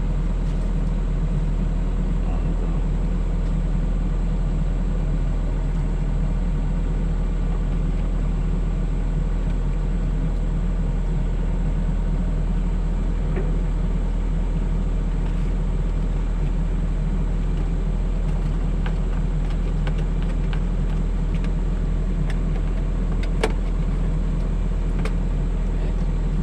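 Mini excavator's diesel engine running steadily at a constant speed, with a few light clicks near the end.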